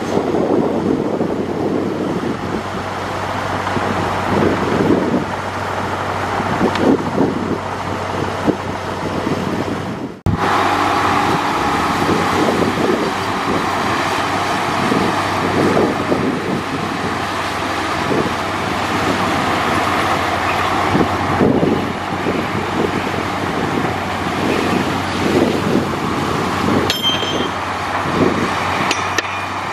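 Heavy diesel earthmoving machinery (a crawler bulldozer and dump trucks) running steadily under load, with a low engine hum throughout; the sound drops out for an instant about ten seconds in.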